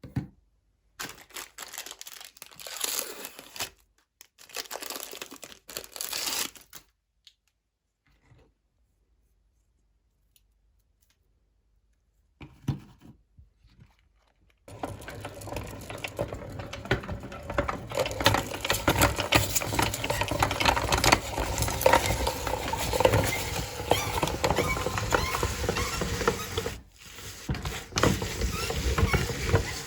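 A few short bursts of handling noise, a pause, then from about halfway in a meat grinder runs continuously, crunching through ice and lemon with a dense crackle of clicks, stopping briefly once near the end.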